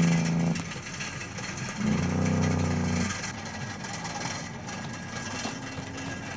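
Heavy logging truck's engine running with a steady droning note that drops away about half a second in, comes back for about a second around two seconds in, then settles to a quieter rumble.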